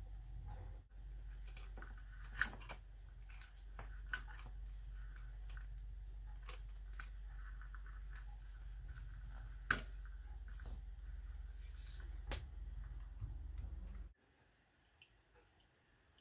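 Handling noises as an electrical cord is worked through a wooden lamp base: scattered light clicks and small knocks, the sharpest about two and a half seconds in and near ten seconds in, over a steady low hum that cuts off abruptly near the end.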